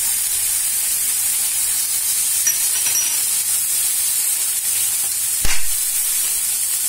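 Mixed vegetables sizzling steadily in oil in a stainless steel pan, an even hiss, with a single sharp knock about five and a half seconds in.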